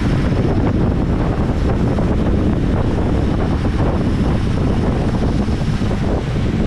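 Steady, heavy wind noise buffeting the microphone of a camera riding on a racing bicycle at race speed in a pack of cyclists.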